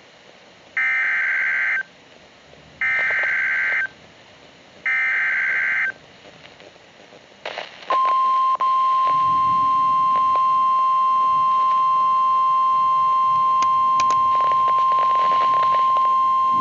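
Emergency Alert System SAME header: three one-second bursts of buzzy data tones about two seconds apart. About eight seconds in comes the steady single-pitch NOAA Weather Radio alert tone (1050 Hz), still sounding at the end. Together they mark the start of a new weather warning.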